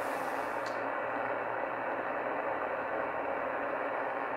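Steady static hiss from a shortwave receiver's speaker, tuned to CB channel 38 (27.385 MHz) lower sideband with no station coming through: an open channel between fades of skip. A brief faint rustle at the very start.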